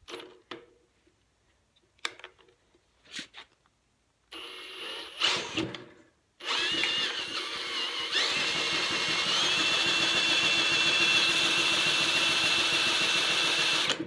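Cordless drill with a 9/16 socket on the flywheel nut spinning over a Briggs & Stratton 8 hp engine with its spark plug removed, to test for spark. A few clicks, then a short run about four seconds in, then a long steady run from about six seconds on, the whine stepping up in pitch around eight seconds.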